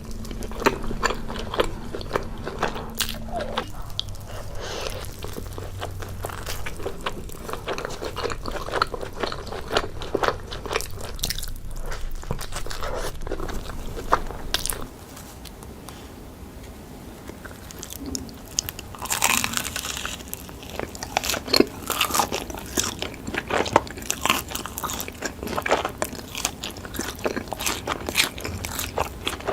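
Close-miked eating: a person biting into and chewing deep dish pizza, with irregular crisp crunches and wet chewing. A low background hum under the first half drops away about halfway through.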